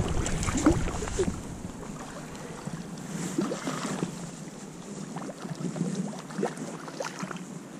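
Small splashes and lapping water as a hooked Lahontan cutthroat trout thrashes at the lake surface near the landing net.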